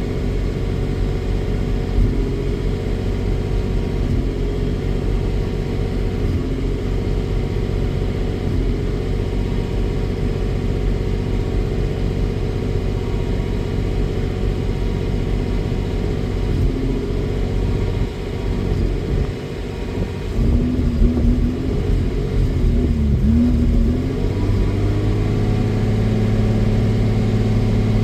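1987 Jaguar XJ-S 3.6's straight-six engine running at low revs, in a car with a misfire problem. About two-thirds of the way through, its note wavers unevenly for a few seconds, then settles into steadier running at a slightly higher pitch.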